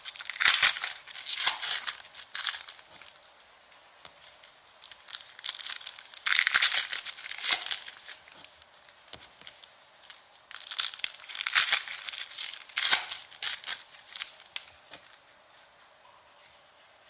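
Foil wrappers of basketball trading-card packs being torn open and crinkled by hand, in three bouts of crackling and tearing with sharp clicks, the last one dying away near the end.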